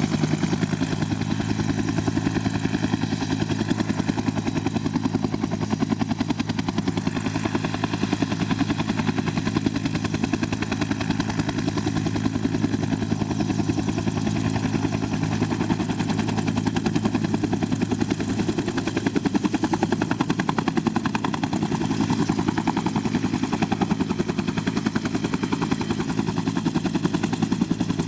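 Makita TW001G 40V 3/4-inch high-torque cordless impact wrench hammering continuously, a fast, even rattle of impacts at a steady level.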